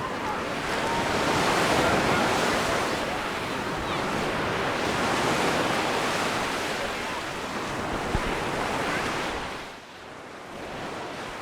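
Sea waves breaking and washing on the shore, the surf swelling and easing in slow surges and dropping away about ten seconds in.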